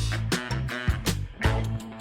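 Background music with a steady beat: drums and guitar in a funk style.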